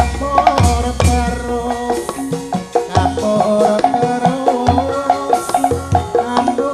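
Javanese gamelan music: sustained melodic metallophone-like tones over regular low drum strokes.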